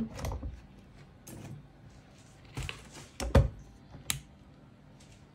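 Glass jug of an electric tea maker being handled and set on its base: a few light knocks and clicks, the loudest a little after three seconds in, then a sharp click about four seconds in as its power button is pressed on.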